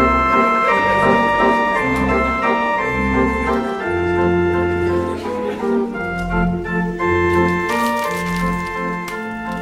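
Organ music: sustained chords over a bass line, the notes changing about every half second to a second.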